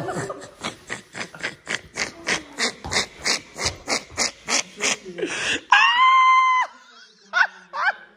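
A person laughing uncontrollably in rapid breathy bursts, about four or five a second, then breaking into a long high-pitched squeal and two short squeaks near the end.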